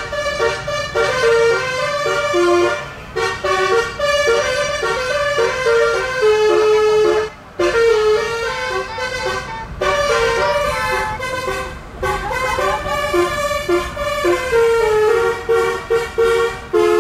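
Telolet basuri bus horn playing a melody: a quick run of short and held pitched horn notes, with a couple of brief pauses.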